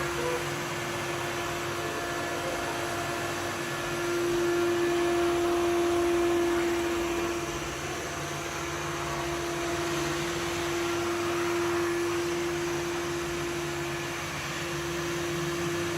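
Samsung VR20M7070WD robot vacuum cleaner running: a steady motor whine with one constant tone over a rushing hiss. It grows louder for a few seconds about four seconds in, and briefly again later.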